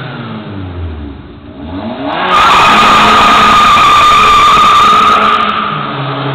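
Turbocharged 2.0 litre four-cylinder engine revving up with a rising note, then a very loud tyre squeal held steady for about three seconds as the car launches away with wheelspin, fading near the end.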